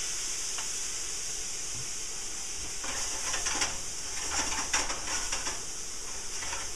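Sliced bell peppers frying in butter in a frying pan, sizzling steadily, with a spell of louder crackling and stirring about three to five seconds in.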